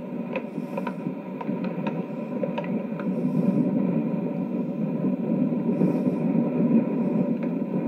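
A steady low rumble with a faint steady whine, growing a little louder over the first few seconds, with a few light ticks near the start.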